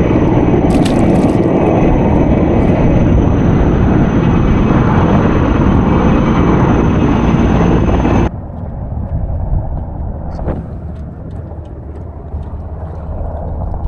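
Firefighting helicopter flying close overhead: a loud, steady rotor and engine noise with a high turbine whine, which cuts off abruptly about eight seconds in, leaving quieter wind noise on the microphone.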